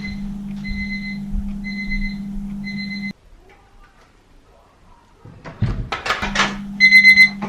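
Alarm clock beeping, a high tone repeating about once a second over a low hum, both cutting off abruptly about three seconds in. Near the end another alarm clock starts up with rapid beeps, several a second.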